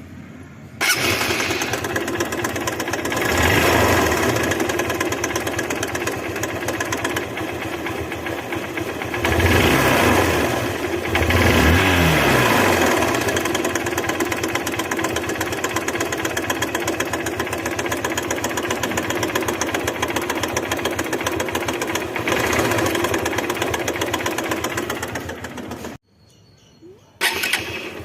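Motorcycle engine starting about a second in and running with a fast mechanical clatter, revved up a few times, then switched off near the end with a short burst just after. The clatter is the engine noise put down to a worn camshaft and timing chain.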